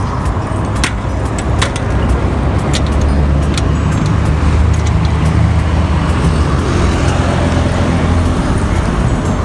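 A motor vehicle going past close by: a low engine rumble builds over a few seconds and drops away near the end. A few sharp clicks sound in the first four seconds.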